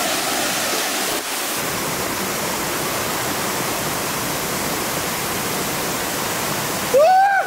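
Steady rush of a mountain stream spilling over a small waterfall into a pool. Near the end a person's voice gives one short, loud call that rises and falls in pitch.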